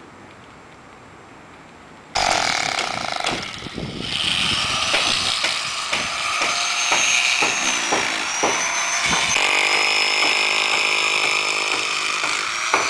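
An electric power tool running, with repeated irregular knocks over a high steady whine. It starts suddenly about two seconds in, after a faint hiss.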